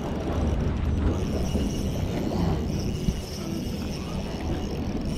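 Wind buffeting the microphone, a steady low rumble, with one short click about three seconds in.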